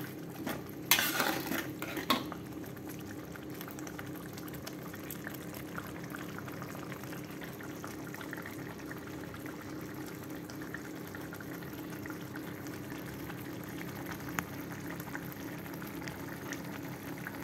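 Chili sambal simmering steadily in a wok. In the first two seconds a metal spatula scrapes and clacks against the wok as it is stirred.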